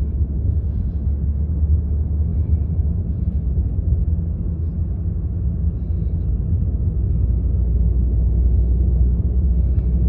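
Steady low rumble of a car's engine and tyre noise heard from inside the cabin while driving along a city road, growing slightly louder in the second half.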